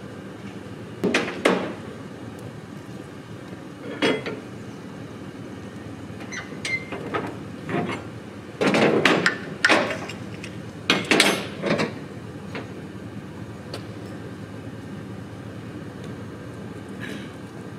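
Metal clanks and knocks from gear being handled at the back of a flatbed truck, some with a short ring, coming in irregular bursts with the loudest cluster about nine to twelve seconds in, over a steady low hum.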